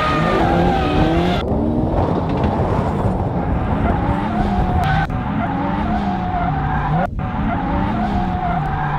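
Car engine revving up and down over and over, its pitch rising and falling several times, as a sedan drifts in circles on snow, with the rushing hiss of the tyres spinning through the snow underneath.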